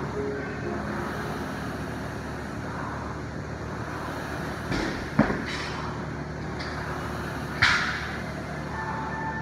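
Steady hum of a large gym, broken by a sharp knock about five seconds in and a shorter crack near eight seconds.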